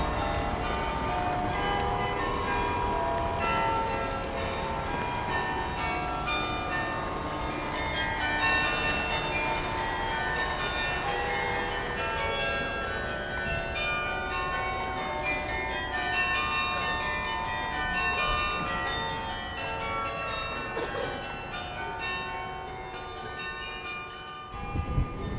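Church tower bells ringing: many bell notes of different pitches struck in quick succession and overlapping, over a low background rumble, easing off near the end.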